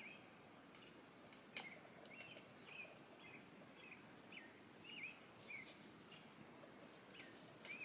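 Near silence with faint short bird chirps, repeating about twice a second, and a couple of soft clicks.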